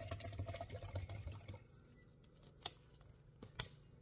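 Water pouring into a cup, stopping about a second and a half in. Two sharp clicks follow near the end, the second louder.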